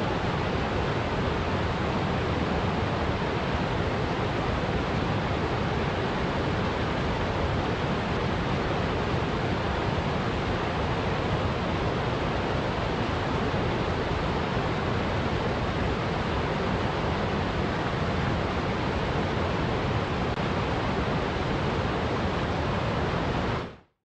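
Mountain stream rushing and splashing down small cascades over rocks, a steady, unchanging rush of water. It fades out quickly at the very end.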